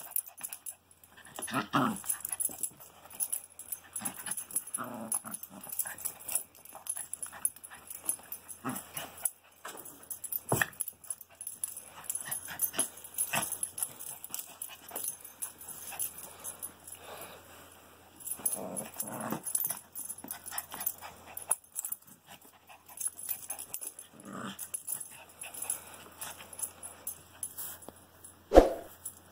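Small terrier-type dog whining and whimpering in short, irregular bursts, with a couple of louder, sharper yips near the end.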